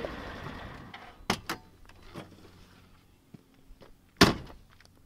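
Side-by-side UTV door: two sharp latch clicks, then the door slammed shut with a loud thunk about four seconds in.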